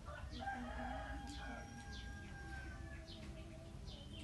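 A rooster crowing, one long drawn-out call lasting nearly three seconds, with small birds chirping in short high notes throughout.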